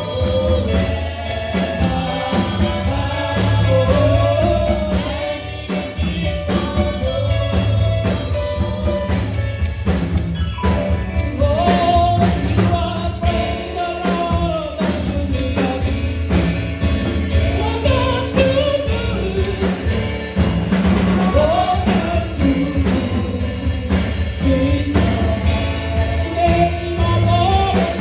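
Gospel music: singing with a choir over bass and drums.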